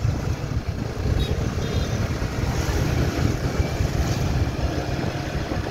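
Yamaha sport motorcycle riding through town traffic and picking up speed, its engine running under a heavy low wind rumble on the microphone.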